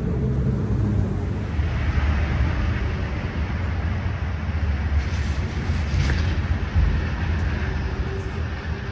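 Steady low rumble of nearby vehicle traffic, with the noise of a passing vehicle swelling about a second and a half in.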